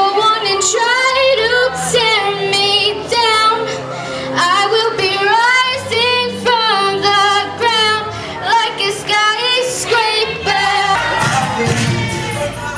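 Music: a high voice singing a melody over sustained accompaniment, the accompaniment shifting near the end.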